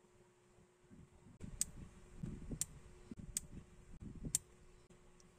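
Four sharp, faint plastic clicks, roughly a second apart, as a knock-off Lego-style minifigure is turned and handled in the fingers, over soft rustling of fingers on plastic.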